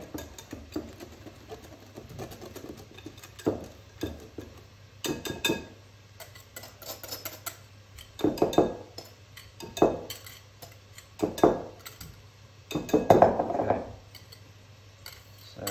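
A utensil scraping and knocking against a mixing bowl as stiff egg white is folded into batter, in a series of separate strokes a second or two apart, the loudest near the end.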